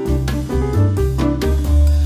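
Upbeat jazzy background music with piano, walking bass and drums, with a steady beat.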